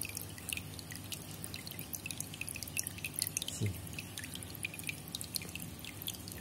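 Water dripping and bubbling in a small fry tank: many quick, irregular little drips and bubble pops over a low steady hum.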